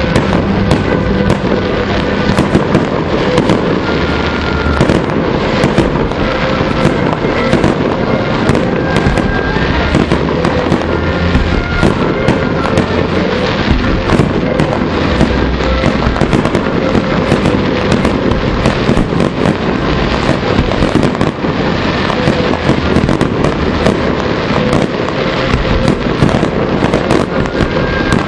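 Aerial fireworks display: a dense, continuous barrage of firework shots and bursting shells, bang after bang with crackle, with no pause.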